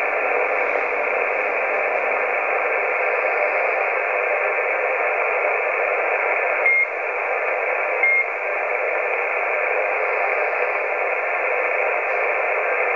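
Steady static hiss from a CB radio receiver on the 27 MHz band, heard through its speaker between transmissions, with two very short high beeps about a second and a half apart near the middle.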